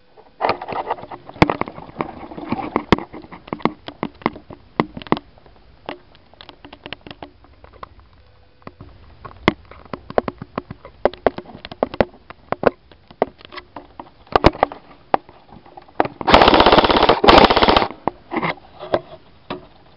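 Airsoft rifle fired full-auto in two rapid bursts near the end, the first about a second long and the second about half a second, after a long run of scattered sharp clicks and knocks.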